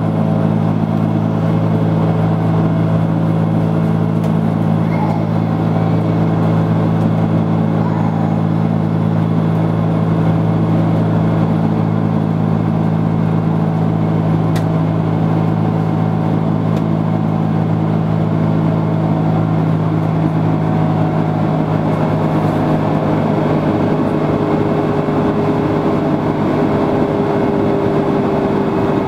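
Steady engine and airflow drone inside the cabin of an Airbus A330-300 airliner in flight, a constant low hum with a wash of air noise.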